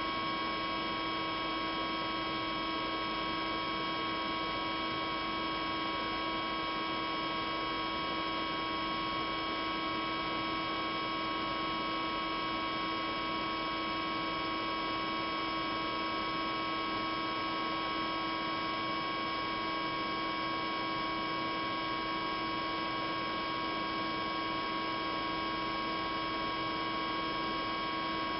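A steady hum made up of several steady tones, one low and others higher, with no change in pitch or level.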